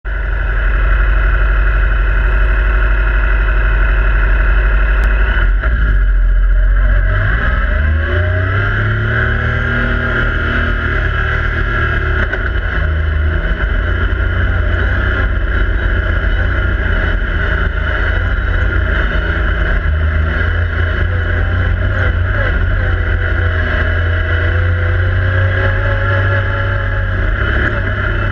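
Yamaha YXZ1000R side-by-side's three-cylinder engine heard from inside the cab. It runs low and steady at first, picks up speed with a rising pitch about seven seconds in, then keeps running at speed with smaller rises and falls in pitch.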